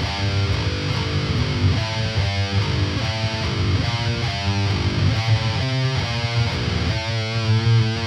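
Aristides electric guitar with heavy distortion playing a metal riff slowly, note by note in uneven groups, as the player works out the notes and fingering.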